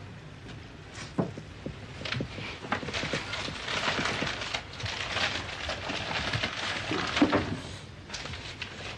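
Crumpled newspaper rustling and crackling as it is unwrapped by hand, with a few sharp clicks early on and a denser crinkling from about two seconds in that eases near the end.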